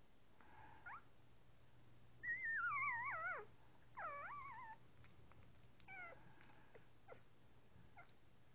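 Young puppies whimpering: a long, high wavering whine a couple of seconds in, followed by shorter squeaky cries.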